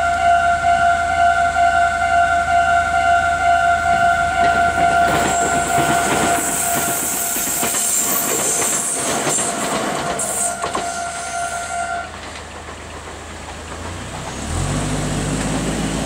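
Japanese railway level-crossing warning bell ringing in a steady repeating electronic ding while a Meitetsu electric train passes over the crossing, its wheels clicking and rushing for about six seconds. The bell cuts off suddenly about twelve seconds in. Near the end a vehicle engine rises as road traffic moves off across the tracks.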